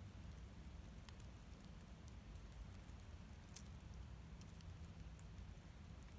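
Near silence: a faint steady low rumble with a few scattered faint ticks.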